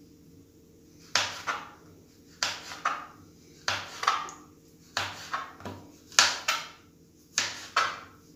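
Kitchen knife cutting orange peel into strips on a plastic cutting board: sharp knocks of the blade hitting the board, coming in pairs about once a second.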